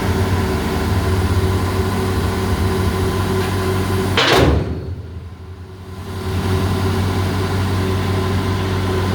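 Excavator engine running with a steady hum. About four seconds in there is one sharp, loud knock, then the sound drops away for about two seconds before the engine hum returns.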